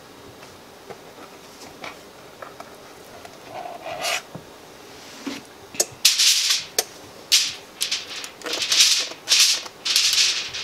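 Aluminium foil crinkling in a run of loud rustling bursts over the last four seconds or so, as a spring-loaded cookie scoop presses dough onto a foil-lined baking sheet. A few light clicks come before.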